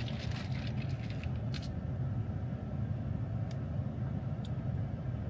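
Steady low rumble inside a stationary car with its engine idling, with a few light clicks from ice being stirred with a straw in a plastic cup.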